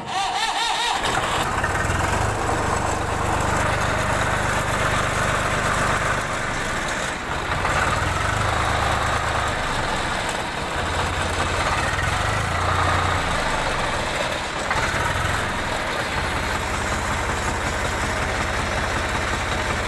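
Swaraj tractor's diesel engine firing up and then running steadily with an even low beat. It starts after air was bled from the fuel system.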